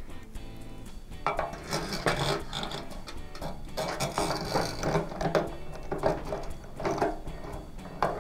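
Metal faucet fittings and flexible metal supply hoses clinking and rattling against the stainless sink and deck plate as the faucet body is fed into the mounting hole, with irregular clinks from about a second in. Soft background guitar music plays underneath.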